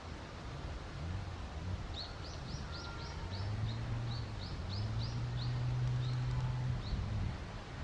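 A small bird calling a run of short, high chirps, two or three a second, over a low steady drone.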